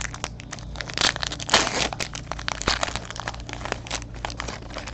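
Trading card pack wrappers crinkling and rustling as packs are opened and cards handled, a dense run of crackles busiest about a second in.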